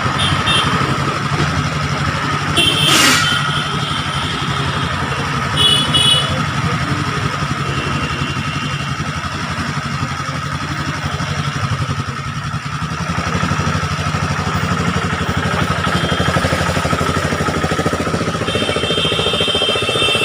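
Busy street traffic: vehicle engines running steadily, with short high-pitched tones now and then and a brief loud hiss about three seconds in.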